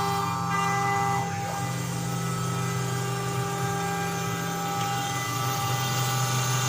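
QUICK K6100A CNC router running on a test run: a steady machine whine made of several held tones. The pitch pattern shifts slightly about a second in and again around five seconds, as the machine's motion changes.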